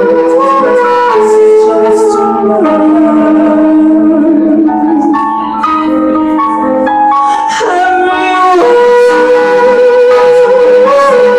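Live amplified band music: electronic keyboards and synthesizers holding sustained chords, with a man singing long held notes into a microphone.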